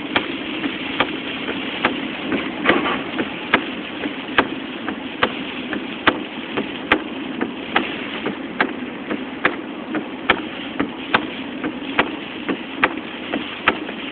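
Inside a car cabin: steady engine and road noise, with a sharp click repeating evenly a little more than once a second.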